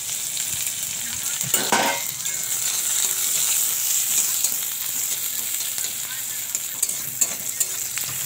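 Sliced onions and green chilli sizzling in hot oil in a metal kadai, with a steady hiss. A spatula stirs them, scraping and clicking against the pan, most loudly about a second and a half in.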